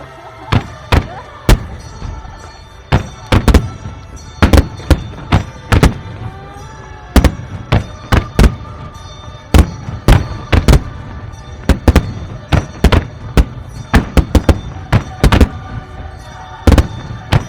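Aerial firework shells bursting in a fast string of sharp bangs, one or two a second and some in quick pairs, over music.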